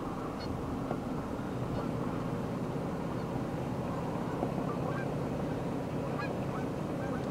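Steady wind buffeting the microphone, with a few faint short bird calls in the second half.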